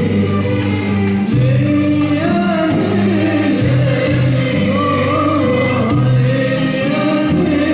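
Arabic muwashshah music: voices singing a flowing melody together over steady instrumental accompaniment.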